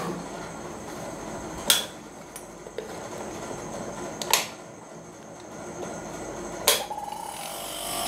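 Three sharp plastic clicks a couple of seconds apart as a mains plug is pushed into a switchboard socket and switched on. Near the end a refrigeration compressor starts to hum, the compressor being used to pump pressure into a fridge's sealed system for a leak test.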